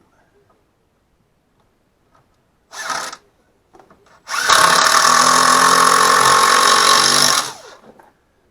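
Handheld power drill running: a brief burst, then a steady run of about three seconds at an even speed before it winds down.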